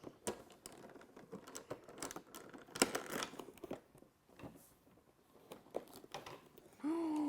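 Crinkling and rustling of packaging with scattered small clicks and taps, the sound of a toy advent calendar's door being opened and the small figure inside unwrapped.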